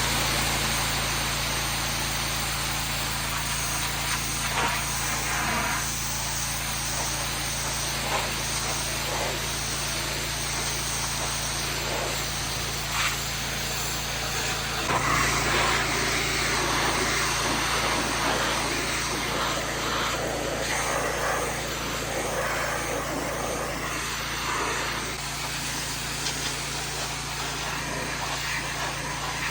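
Small engine running steadily under a continuous hiss of water spray, as from a pressure washer cleaning a skid steer's engine bay. The sound shifts once, about halfway through.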